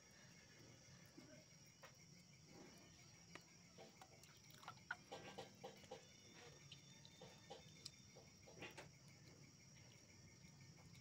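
Near silence: faint wet squelches and small clicks as goat tripe is rubbed and peeled by hand in a steel bowl of hot water, over a faint steady insect chirring.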